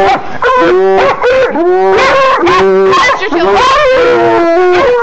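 Several coonhounds bawling and baying over one another in long drawn-out howling notes, at quarry held in a wire cage trap.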